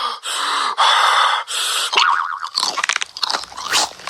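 Loud crunching and chewing of cereal: several long crunches one after another, then rapid crackly chewing from about two and a half seconds in.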